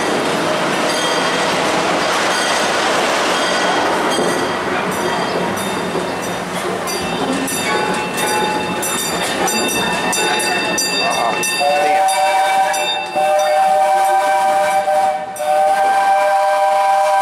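Narrow-gauge steam train rolling along, heard from an open passenger car: a steady rumble of the wheels on the rails with thin squeals over it. About twelve seconds in, the steam locomotive's whistle blows a long two-note chord, broken briefly twice, and still sounding at the end.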